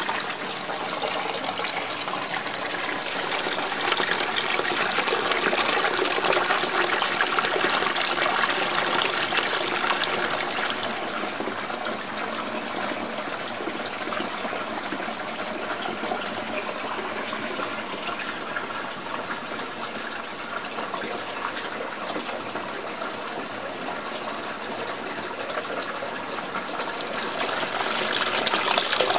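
Hot spring water pouring steadily from a pipe into a bathtub, a continuous rushing splash that grows a little louder near the end.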